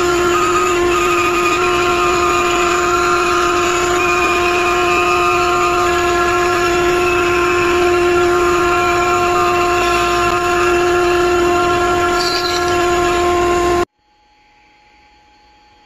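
CNC router spindle running at a steady high whine while the bit cuts the wood, with a hiss of cutting noise beneath it; it cuts off suddenly near the end.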